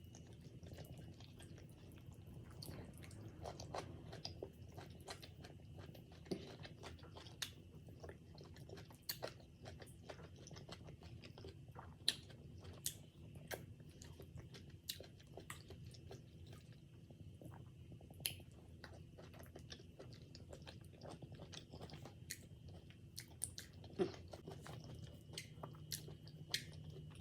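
A person eating fufu and banga soup with cow feet close to the microphone: chewing, with soft wet mouth clicks and smacks scattered irregularly throughout, a few louder than the rest. A low steady hum lies underneath.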